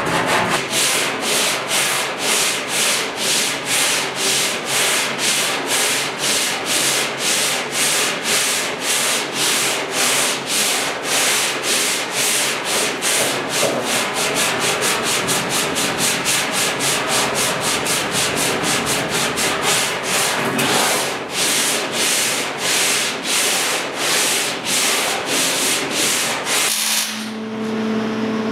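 Hand sanding of body filler on a 1972 Ford truck's steel inner box side: rhythmic back-and-forth strokes of a sanding block, about two a second. Near the end it gives way to a steady hum.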